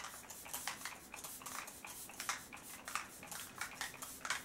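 A finger-pump spray bottle of setting spray misting onto a face, pumped in quick succession: a run of short hisses, about three a second.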